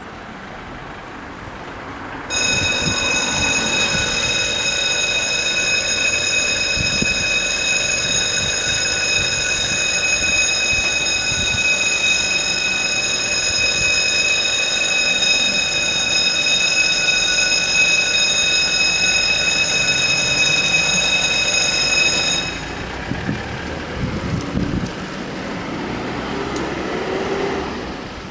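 Level-crossing warning bells start ringing about two seconds in, a loud, steady, high ringing that warns of an approaching train. They cut off suddenly some twenty seconds later, with the barriers lowered, leaving only quieter traffic noise.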